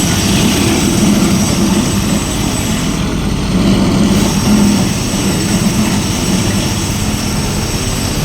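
Road roller's engine running steadily and close, with a constant low hum over a rumble.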